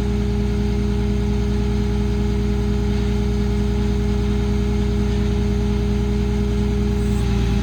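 PACCAR PX-6 diesel engine of a Kenworth T370 service truck running at a steady speed with its PTO-driven crane hydraulics engaged, a steady tone carried over the engine's note. About seven seconds in the tone drops away and the sound changes as a crane function stops.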